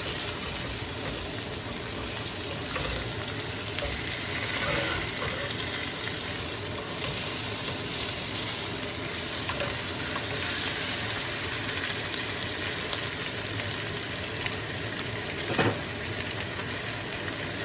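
Chicken leg quarters sizzling steadily as they brown in hot oil in a frying pan, with one brief knock near the end.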